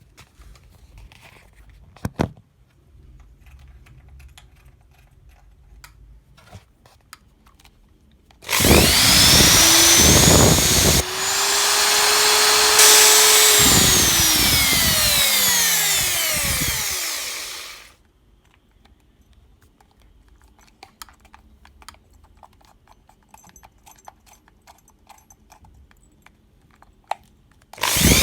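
Interskol electric drill run on test, in working order. It spins up with a rising whine, cuts out for a moment, runs for several more seconds, then coasts down with a falling whine when released. It starts up again at the very end. Before and between the runs there are quiet handling clicks.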